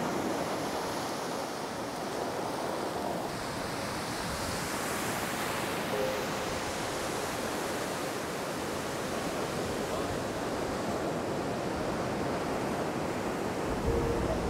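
Sea surf breaking and washing up a pebble and sand beach in a rocky cove: a steady rush of waves.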